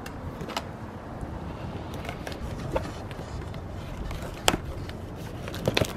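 A cardboard box being slit open with a small blade and torn by hand: a few short scrapes and rips, the sharpest about four and a half seconds in, over a steady low rumble of wind on the microphone.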